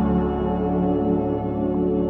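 Ambient background music of long, steady held tones.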